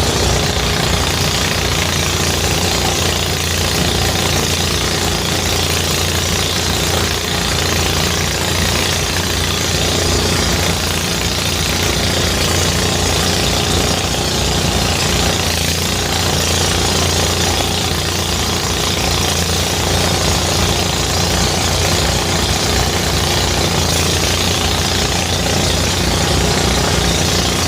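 Engine-driven rice thresher running steadily, its engine beating in a fast, even knock.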